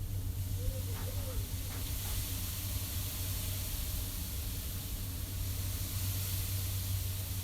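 Blizzard wind blowing steadily: a low rumble with a hiss of driven snow on top.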